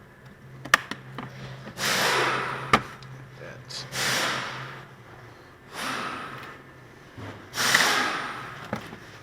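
A person breathing heavily, with four loud exhales about two seconds apart, plus a couple of sharp clicks in the first few seconds.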